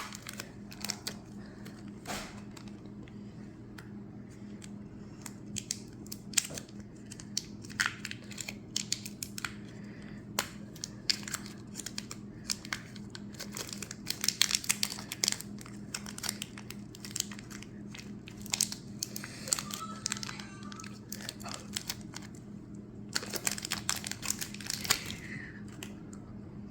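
Plastic packet of air-dry clay being torn open and crinkled: a scatter of sharp crackles, busier about halfway and again near the end, over a faint steady low hum.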